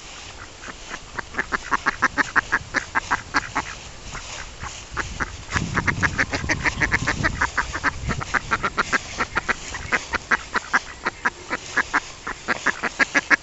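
Hen duck quacking excitedly in rapid runs of short quacks, about five a second, as she displays to her drake.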